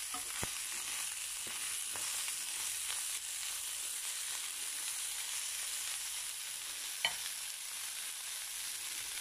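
Whole shell-on shrimp sizzling in a little oil in a pan and being turned with a slotted spatula: a steady frying hiss with a few light scrapes and one sharper tap about seven seconds in.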